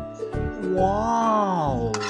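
Background music: a playful tune with a swooping melody line that slides up and back down about a second in.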